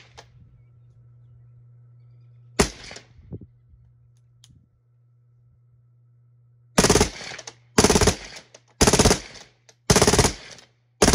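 Suppressed select-fire AR-15 rifle with a SilencerCo Saker 556 suppressor firing: a single semi-auto shot, then five short full-auto bursts about a second apart in the second half.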